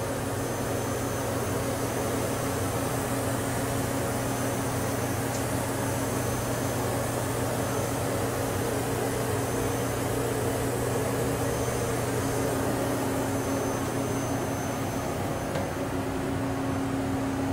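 Hurco BMC-20 CNC vertical machining center running its built-in warm-up cycle: a steady hum from the spindle and axis drives, with a low whine held at a constant pitch.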